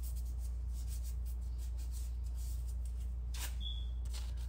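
Faint rubbing of a wax strip being smoothed onto the chin, then a quick sharp rip about three and a half seconds in as the strip is pulled off the skin. A steady low electrical hum sits under it all.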